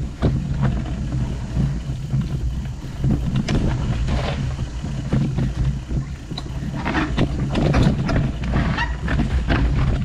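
Mountain bike ridden along a forest trail: tyres rolling over dirt and rocks with a steady low rumble and the bike rattling, and a run of knocks and clatters over the last few seconds as the trail turns rocky.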